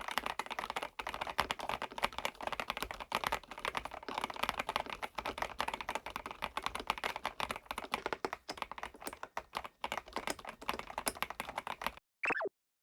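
Fast, continuous typing on a DynaTab 75X gasket-mount mechanical keyboard with Epomaker Flamingo linear switches: a rapid, dense clatter of keystrokes. It stops about a second before the end, followed by a brief falling tone.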